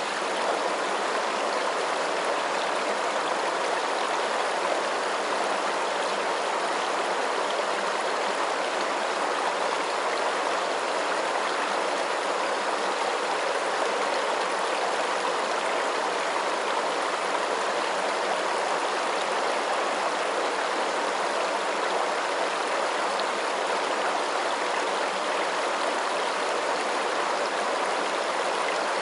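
Running water, like a stream, making a steady, even rush that does not change.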